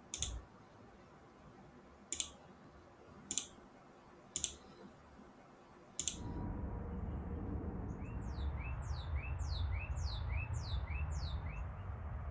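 Computer mouse clicks, about five of them spread over the first six seconds. About six seconds in the sound changes to open-air background noise with a low rumble, and a bird chirps again and again in short notes that fall in pitch, roughly two a second.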